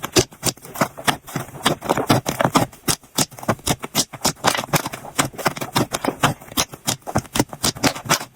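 Slime being squeezed and poked by hand, giving rapid, irregular crackling clicks and pops.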